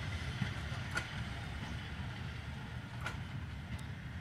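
Vintage passenger coaches rolling away on the track: a steady low rumble that slowly fades, with two short sharp clicks, about a second in and again near three seconds.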